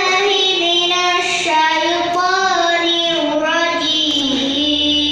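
A young girl reciting the Qur'an from memory in a melodic chant, holding long notes that slide slowly from pitch to pitch.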